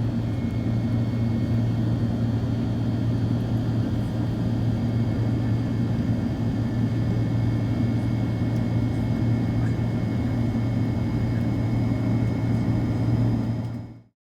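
Boeing 767-300 jet airliner cabin noise: a steady drone of engines and airflow with a strong low hum, heard from inside the cabin. It fades out quickly near the end.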